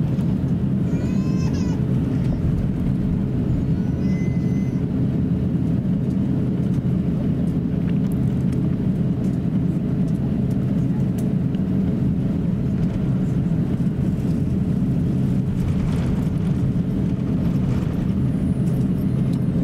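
Airbus A350-900 airliner cabin noise while taxiing: a steady low rumble from its Rolls-Royce Trent XWB engines at taxi power and the aircraft rolling on the taxiway, heard from inside the cabin.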